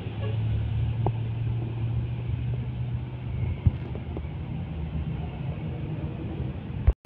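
Street traffic: engines of trucks, minibuses and motorbikes running at low speed, a steady low rumble with a hum that eases about three and a half seconds in. The sound drops out briefly just before the end.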